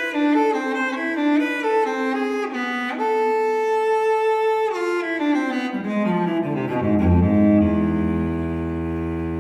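Background music on bowed strings. A run of short melodic notes gives way to one long held note, then steps down into a long low held note in the second half.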